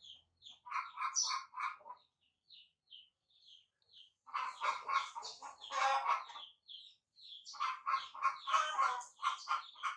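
Baby monkey giving short, high squeaks and chirps in quick succession, broken by louder runs of rapid squealing calls.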